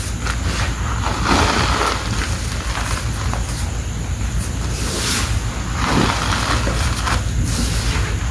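Hands crushing and crumbling soft dusty chalk bricks into powder: irregular dry crunches, over a steady low hum.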